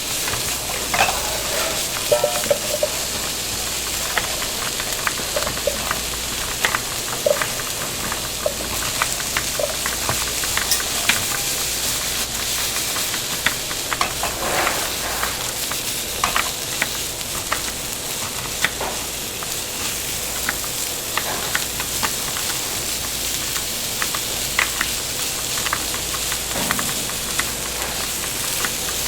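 Restaurant kitchen ambience: a steady sizzling hiss with frequent clinks and clatters of utensils and cookware, and now and then a brief ringing tone of metal or crockery.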